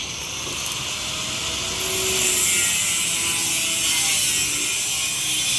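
Stick (arc) welding from a 200 A welding machine: the arc strikes suddenly and then crackles and sizzles steadily, growing louder over the first two seconds.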